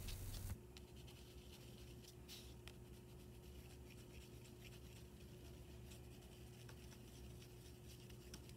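Faint scratching of a pastel stick drawn over a dry acrylic painting, in short irregular strokes, over a faint steady hum.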